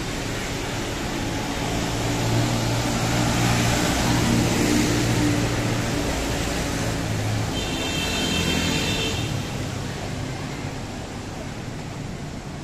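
Street traffic: a motor vehicle's engine hum and tyre hiss passing close, swelling and then fading over several seconds, with a brief high-pitched tone about eight seconds in.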